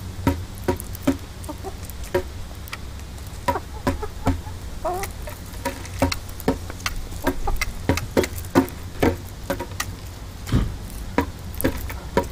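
Hens pecking mealworms off the head of a bongo drum: irregular sharp taps on the drumhead, a few a second, with a soft hen cluck about five seconds in.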